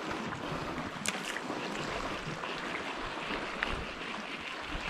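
Wind buffeting the microphone over the wash of the sea against the rocks, with a sharp click about a second in.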